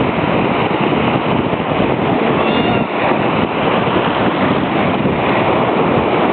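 Steady wind buffeting the microphone over the rush of ocean surf on the beach.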